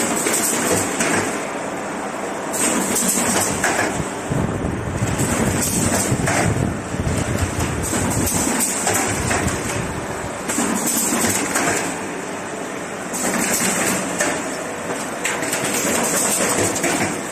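Automatic corrugated partition assembling machine running: a dense, continuous mechanical clatter that swells and dips but never stops.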